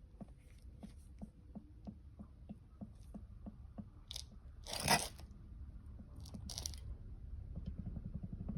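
Kayaba rear shock absorber strut from a Land Rover Freelander 2 knocking faintly and repeatedly, about three knocks a second, as it is worked back and forth, with one louder clunk about five seconds in and quicker clicks near the end. The knock comes from play inside the shock absorber, the cause of the rear knocking over bumps.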